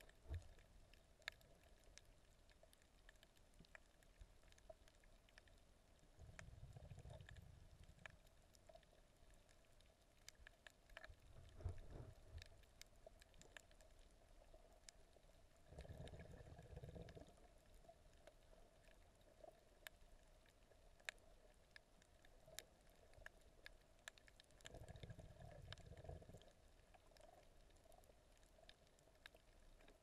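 Near silence underwater, heard through a submerged camera: scattered faint clicks over a faint steady hum, with four low, muffled swells of water movement, each a second or two long.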